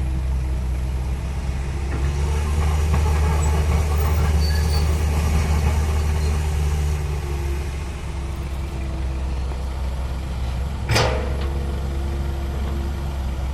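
Heavy diesel earthmoving machinery running steadily, working harder for about five seconds and then easing off. About eleven seconds in there is one short, sharp burst.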